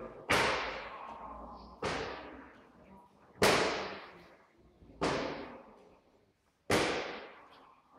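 Hard hand strikes and slaps landing on a karateka's tensed body during a sanchin test: five sharp smacks about a second and a half apart, each fading away over about a second.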